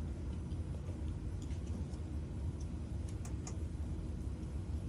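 Faint scattered clicks from the washer's control panel as a wash cycle is selected, over a steady low hum.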